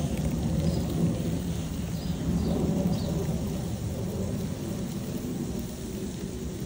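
Wind buffeting the microphone: an uneven low rumble that swells and eases.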